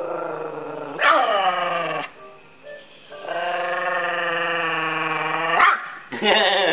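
Small long-haired dog howling: a few drawn-out howls, one sliding down in pitch about a second in, a long steady one in the middle, and a wavering one near the end.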